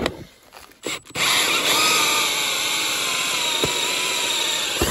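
Cordless drill boring a hole through a house wall with an extended bit. It starts about a second in and runs as a steady whine that sinks slightly in pitch under load, then stops near the end as the bit breaks through.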